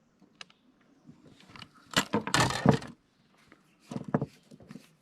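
Irregular clicks and knocks of gear being handled, with a louder clattering burst about two seconds in and a cluster of short knocks near the end.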